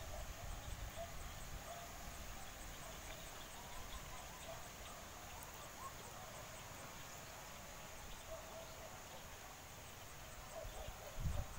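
Faint outdoor ambience of insects trilling steadily and high, with scattered short bird calls; a low rumble on the microphone comes briefly near the end.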